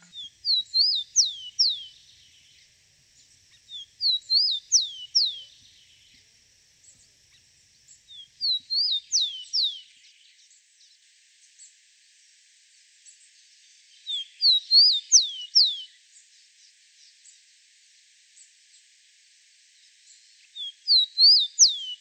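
Rufous-collared sparrow (tico-tico) singing: each song is a few short rising-and-falling notes followed by two or three downward-slurred whistles. The song comes five times, with pauses of a few seconds between.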